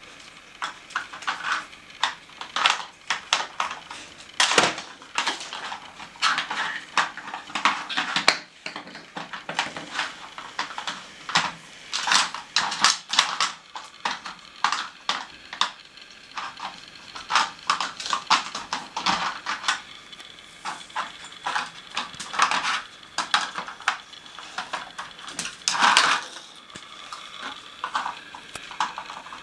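Dog working a plastic treat puzzle with its nose, clacking and clattering the plastic cones in their slots and knocking them onto the hard floor, in irregular bursts of sharp clicks throughout.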